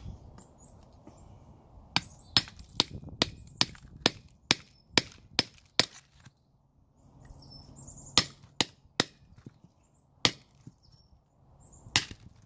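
A hammer tapping a tool to drive a stuck remnant of hub seal out of a wheel hub: a quick run of about ten sharp taps, a little over two a second, then a few more spaced-out taps.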